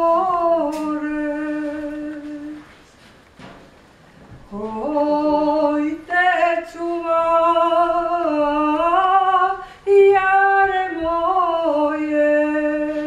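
A woman singing alone without accompaniment, in long held notes with wavering ornamented turns. She breaks off about three seconds in, starts again after a pause of nearly two seconds, and breaks briefly once more near the end.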